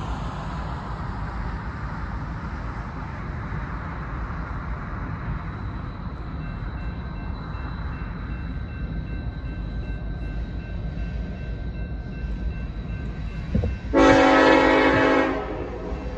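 Freight train cars rolling by with a steady low rumble, and from about six seconds in the faint repeated ringing of a grade crossing bell. Near the end a diesel locomotive's air horn sounds one loud blast of about a second and a half.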